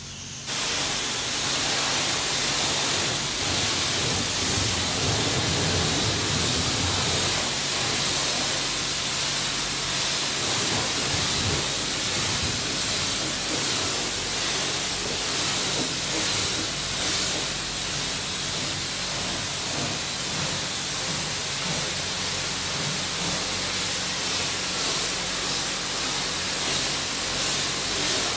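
Car wash high-pressure spray wand blasting water onto a car body: a loud, steady hiss that starts abruptly just after the beginning.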